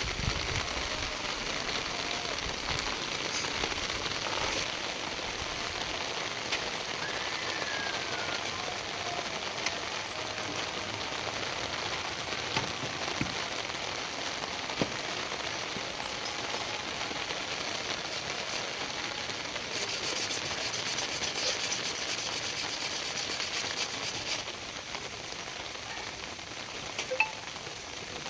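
Steady rain falling, with scattered drops clicking on hard surfaces; it gets heavier for a few seconds in the second half.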